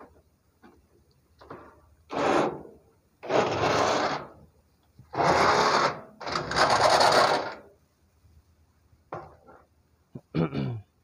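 Cordless impact driver running in four bursts of about a second each, backing out the bolts that hold a wooden shipping crate together.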